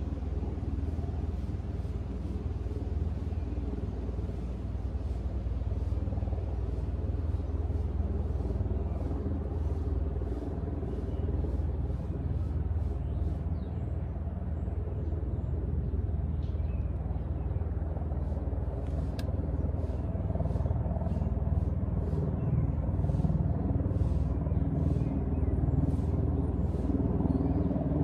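Steady low rumble of a running vehicle, growing a little louder in the second half.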